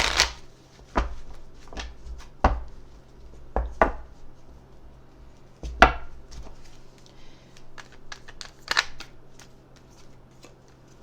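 Oracle cards being shuffled and pulled by hand: a series of irregular sharp taps and slaps of the cards against each other and the table, over a faint steady hum.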